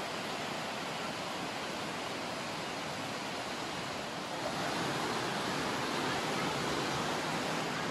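Fast-flowing river water rushing steadily, growing a little louder about halfway through.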